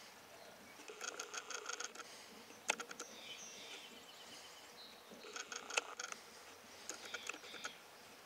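Camera's zoom motor running in three short bursts of rapid, even ticking, with a couple of sharp clicks between them.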